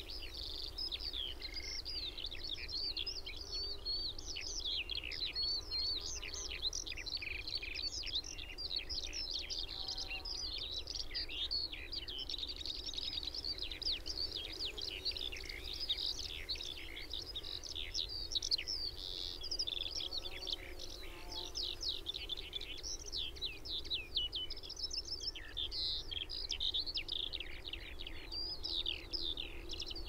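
Skylarks singing overhead: a continuous stream of rapid, high warbling trills and chirps without a break, over a faint low rumble of distant traffic.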